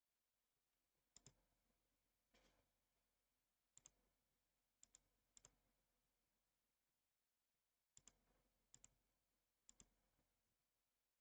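Faint computer mouse clicks: about seven irregularly spaced clicks, each a quick double tick of button press and release, with one softer scuffing sound between the first two.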